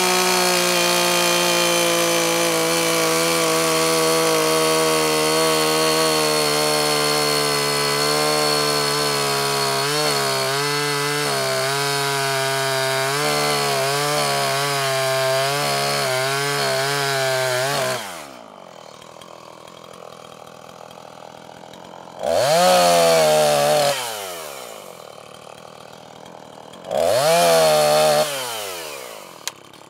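Two-stroke chainsaw at full throttle cutting into the end of a log, its pitch wavering under the load from about ten seconds in. It drops to idle at about eighteen seconds, then is revved in two short bursts that each wind back down to idle.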